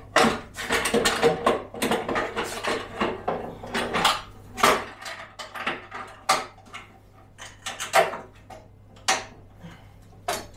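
Hard plastic clattering and knocking as a dust chute is pushed back onto a combined jointer-planer and a vacuum hose is fitted into its port: a quick run of rattles and knocks for the first few seconds, then a few separate clunks.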